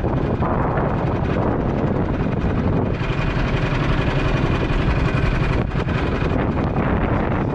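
Wind buffeting the microphone, a loud, steady rumbling noise.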